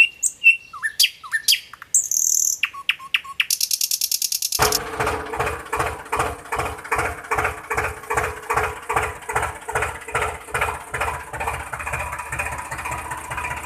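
Bird-like chirps and falling whistles for the first four seconds or so. Then a tractor engine sound comes in, chugging steadily at about three beats a second.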